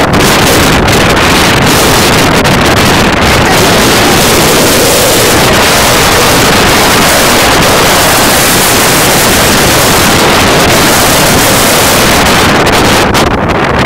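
Strong wind buffeting the phone's microphone: a loud, steady rushing roar with no break.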